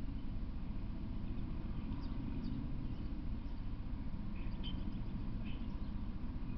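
A few short bird chirps, about two seconds in and again several times between four and six seconds, over a steady low background rumble.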